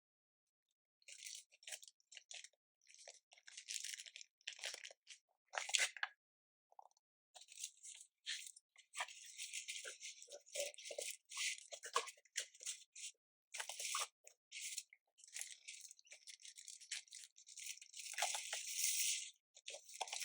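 Packaging being handled and pulled open: irregular bursts of rustling and crinkling, with a few light knocks.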